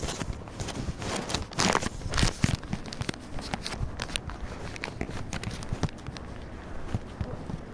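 Handling noise from a phone that is still recording: its microphone rubs and scrapes against clothing or a hand, giving irregular rustling and clicks, loudest about two seconds in.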